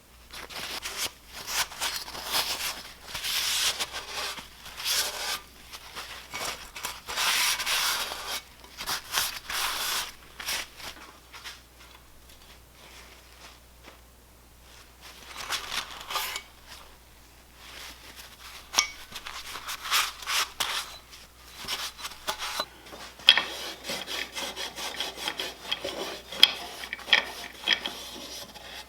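Hand scrubbing and rubbing on an old boat motor's metal parts, in irregular strokes that come in spells, with a quieter stretch midway and sharper scraping clicks near the end.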